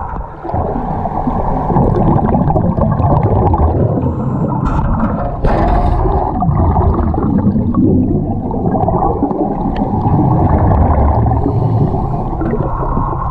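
Muffled underwater noise recorded through a camera's waterproof housing: a dense low rumble with water gurgling and bubbling, and a brief sharper hiss about five and a half seconds in.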